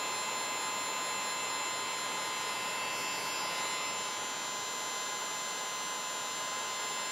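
Electric heat gun running steadily, blowing hot air onto clear heat-shrink tubing over a soldered wire splice to shrink it; a constant airflow hiss with a thin steady whine.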